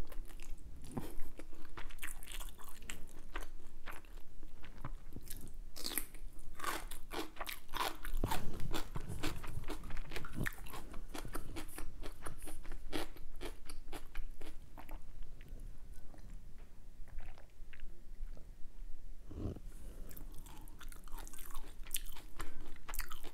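A person chewing and crunching food close to the microphone, with many crisp, irregular crackles throughout.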